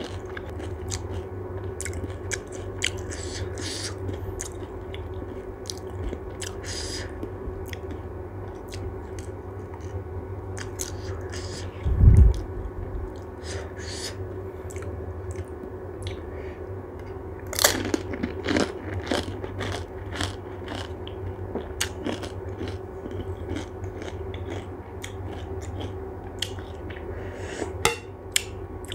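A person chewing pani puri (golgappa), the crisp hollow puris crunching between many short bites and wet chewing, with a louder cluster of crunches a little past the middle. A dull low thump about twelve seconds in is the loudest sound.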